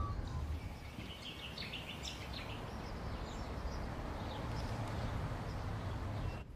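Outdoor ambience: a few birds chirping, mostly in the first half, over a low steady background rumble.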